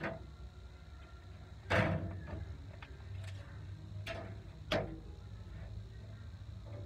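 A few short clicks and knocks from a tape measure being handled on a loose steel floor-pan sheet, the loudest about two seconds in, over a steady low hum.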